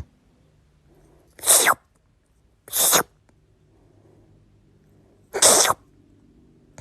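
A cat sneezing three times, each sneeze short and sharp, the last after a longer pause.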